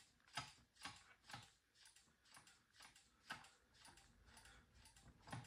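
Faint, evenly spaced clicks about twice a second from the Honda CB450T's front brake being pumped, the hydraulic pressure working the two caliper pistons out of their bores. The clicks thin out and grow fainter after about three seconds.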